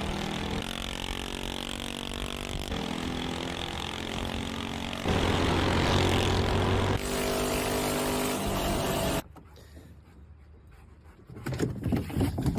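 Engine of a motorised garbage can running and revving as it is driven, its pitch rising and falling, loudest about five to seven seconds in. It cuts off suddenly about nine seconds in, followed by quieter, irregular sounds.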